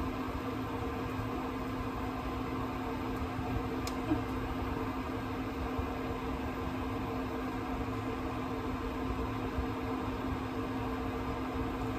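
Portable induction cooker running with a steady electrical hum and cooling-fan whir while a pot heats on it.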